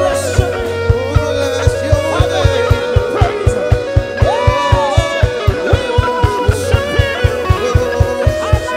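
A live church worship band playing upbeat praise music, driven by a fast, steady kick-drum beat of about four thumps a second under sustained chords.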